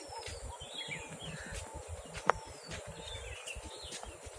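Small birds chirping and giving short, falling whistles over a low rumbling noise, with one sharp click about halfway through.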